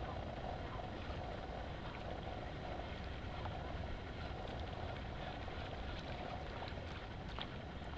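Steady wind noise buffeting the microphone over open water, with a few faint ticks about three quarters of the way through.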